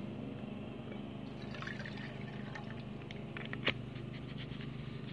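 Water heating in a stainless steel billy can on a small camping stove, with a faint bubbling and liquid sound over a steady low drone. A single light click comes about two-thirds of the way through.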